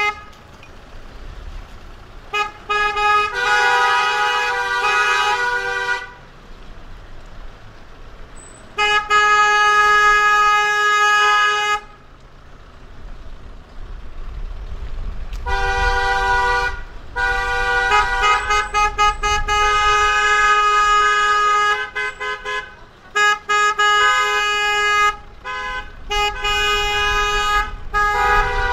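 Car horns honking: long held two-tone blasts and runs of short taps, broken by two brief pauses, over a low rumble of road traffic.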